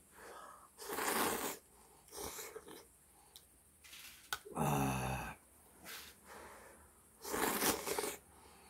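A man eating hot ramen noodles: two loud slurps, about a second in and near the end, with chewing between them and a short vocal sound midway.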